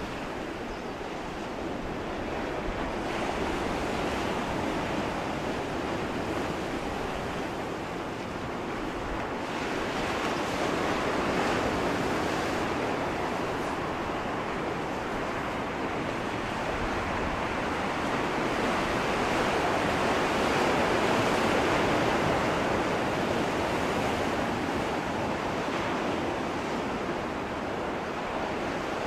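Sea surf: a steady wash of waves breaking, swelling and easing slowly every several seconds.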